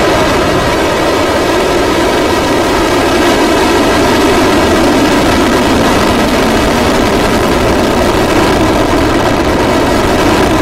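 Rocket engines firing at liftoff on the Unha-3 launcher: a loud, steady noise that does not let up.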